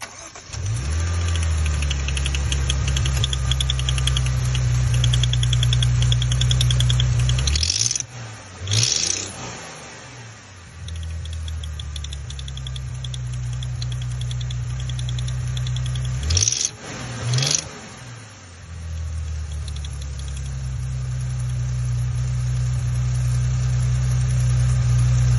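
Maserati Ghibli's V6 engine starting and running with a fast, light ticking over the engine note. Twice the steady note drops away, with brief rises and falls in pitch, before it settles back.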